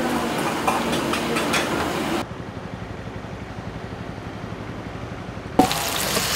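Kitchen clatter of dishes and utensils, then a steady low rumble of road traffic. Near the end a ladle strikes a wok once and food sizzles in it.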